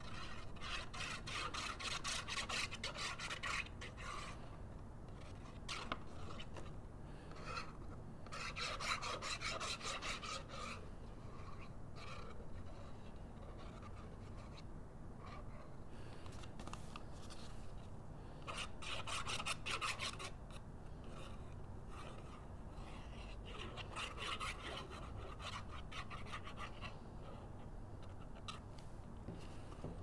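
Adhesive being run along the edges of a paper box: several bursts of rapid rasping clicks, each a second or two long, with quieter pauses between.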